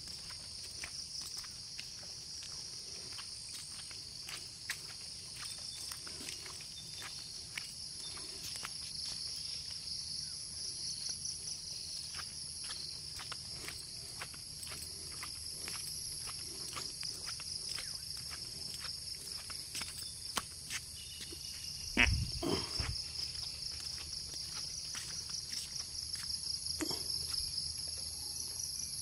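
Insects chirring steadily in a dense, pulsing chorus, with frequent sharp ticks over it and one louder thump about three quarters of the way through.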